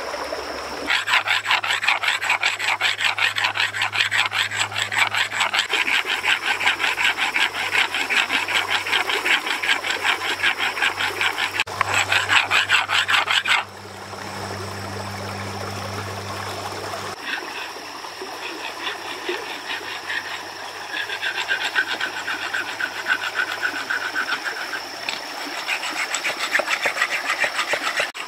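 Knife blade scraping along a bamboo pole in rapid, rhythmic strokes, whittling it into a spear. The strokes stop abruptly about 13 seconds in, and softer scraping resumes a few seconds later.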